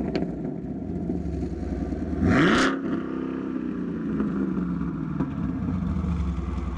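Chevrolet Camaro SS's 6.2-litre LT1 V8 idling through an aftermarket MBRP axle-back exhaust. It is blipped once a little over two seconds in, the pitch jumping up and falling straight back, then settles back to a steady idle.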